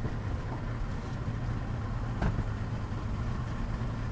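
A boat's engine idling with a steady low hum. A single short knock sounds about two seconds in.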